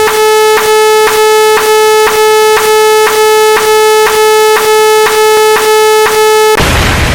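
Electronic sound effect: a steady, buzzy synthesized tone with many overtones, broken by a short click about twice a second. Near the end it gives way to a burst of noise with a low rumble.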